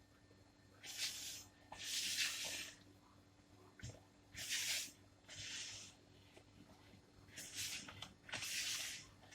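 Spoon stirring flour into a wet sugar-and-water mixture in a bowl: a series of short, soft swishing scrapes, about six strokes.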